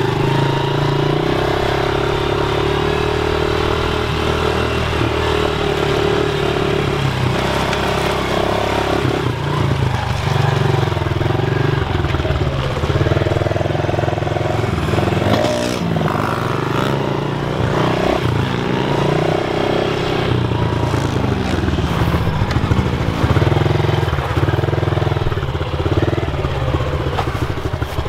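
Small pit bike engine running hard as the bike is ridden on a dirt track, revving up and dropping back over and over with the throttle.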